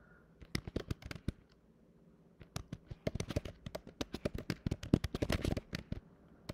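Typing on a computer keyboard: a short run of keystrokes, a pause of about a second, then a longer, quicker run of keystrokes.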